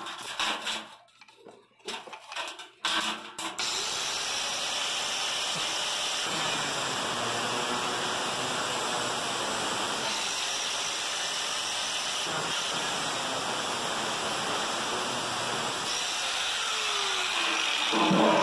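Angle grinder with an abrasive cutting disc starting about three and a half seconds in and then cutting steadily through the perforated stainless-steel drum of a washing machine, a constant grinding hiss. The first few seconds hold only a few knocks.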